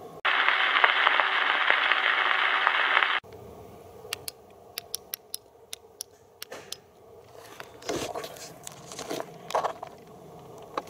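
A loud burst of hiss-like noise that starts and stops abruptly and lasts about three seconds. A run of about a dozen sharp clicks follows, then rustling footsteps in grass near the end.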